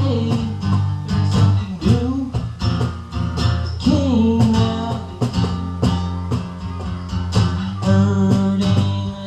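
A man singing while strumming an acoustic guitar in a steady rhythm, his voice sliding between held notes.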